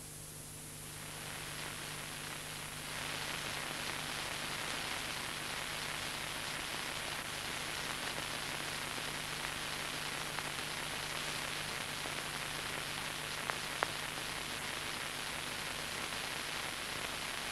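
Steady hiss and crackle of an old film soundtrack with no narration or music, stepping up in level about one and three seconds in. Two faint clicks come close together about thirteen seconds in.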